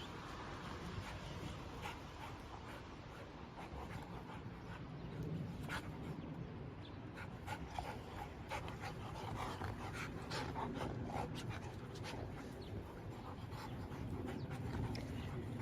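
A dog panting steadily, with scattered short clicks and rustles.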